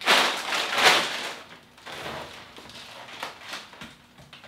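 Loud crackling of a bag of tortilla chips being handled and crunched. A long, loud burst comes at the start, then softer crunches follow a few times.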